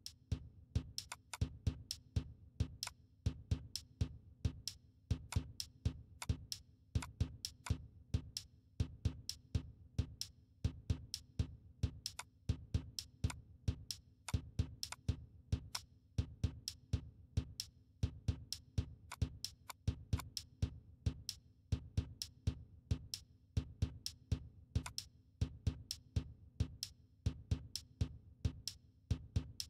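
Background music: an electronic drum-machine beat, even and steady, over a low synth bass line.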